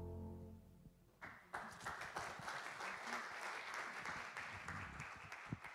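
A final electric keyboard chord dies away. About a second in, the congregation starts applauding, and the applause fades near the end.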